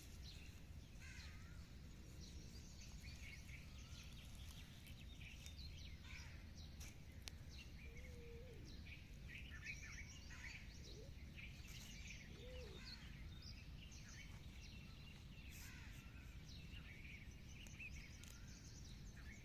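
Faint outdoor background with birds chirping and calling at a distance, over a steady low hum.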